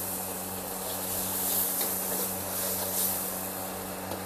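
Seasoned chili sauce sizzling in a hot steel wok: a steady hiss, with a low steady hum underneath.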